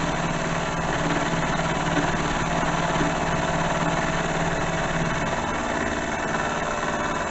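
Milling machine running steadily with a constant motor hum and whine while its cutter takes a finishing pass along the edge of a steel bar.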